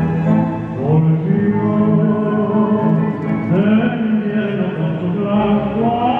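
Tango music playing, with sliding melodic lines over a steady accompaniment.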